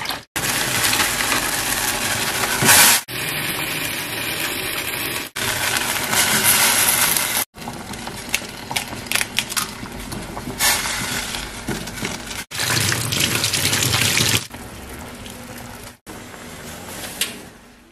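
Kitchen tap running, water gushing into a stainless-steel bowl of leafy greens being rinsed in a steel sink. The sound is broken by several abrupt cuts, with a few clicks and knocks in the middle and quieter stretches near the end.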